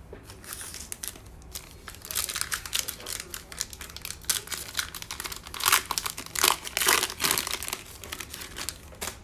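Foil wrapper of a Bowman Chrome baseball card pack being torn open and crinkled by hand: a dense run of crackling that thickens about two seconds in and is loudest around six to seven seconds.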